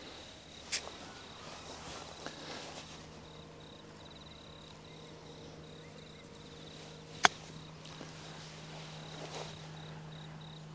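A single sharp click about seven seconds in: a golf iron striking the ball for a short bump-and-run chip onto the green. A high, pulsing insect call runs underneath.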